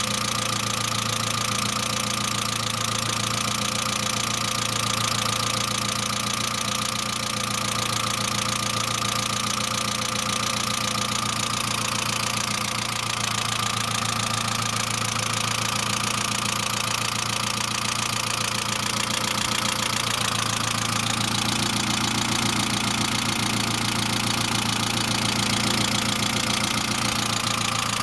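Saab 900 four-cylinder engine idling steadily with an incessant, rapid valve-lifter ticking after an engine and head rebuild. Ticking like this is normally a sign of low oil pressure; the owner suspects the oil pressure relief valve.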